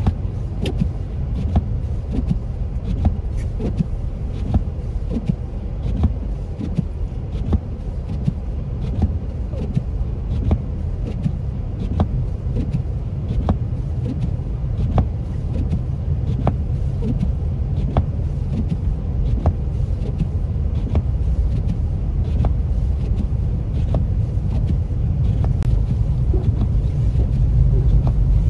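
Car driving on a snow- and slush-covered road, heard from inside the cabin: a steady low tyre-and-engine rumble with many small irregular clicks over it, growing a little louder near the end.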